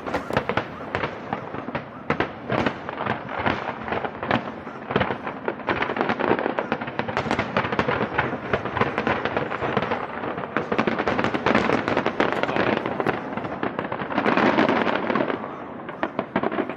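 Aerial fireworks display: a dense, continuous run of overlapping bangs and crackling, loudest in a thick cluster about fourteen seconds in, then thinning toward the end.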